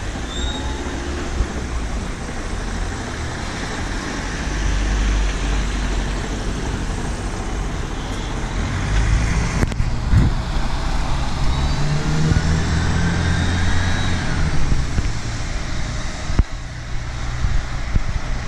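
City street traffic: engines and tyres of passing vehicles, the low rumble swelling around four seconds in and again from about nine to fourteen seconds, with a single short knock just before ten seconds.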